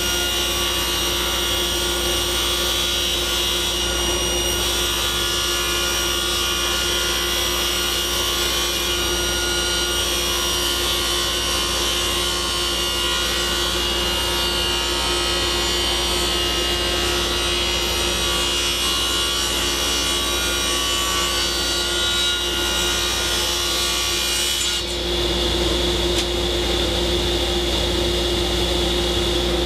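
Table saw ripping thin cedar strips from a board: the blade cuts steadily through the wood over the steady hum of the running machines. The cutting sound changes near the end.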